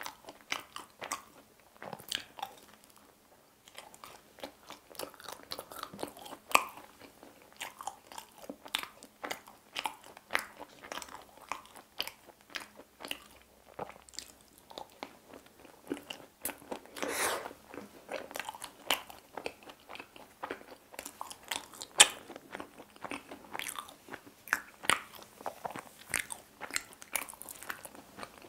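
Close-miked biting and chewing of pizza crust: crunchy bites and wet mouth clicks, many short crackles in an uneven run.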